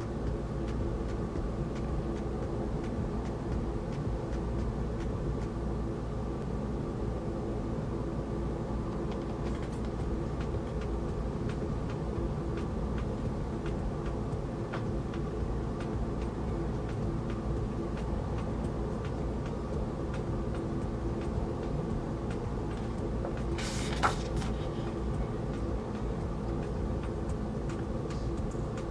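A steady mechanical hum with several constant tones over a low rumble. About 24 seconds in there is a brief rustle, the turning of a large paper booklet page.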